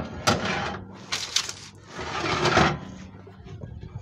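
Dark metal baking tray being pushed into an oven along its side rails: a clank, then two bouts of metal-on-metal scraping as it slides in, over a low steady hum.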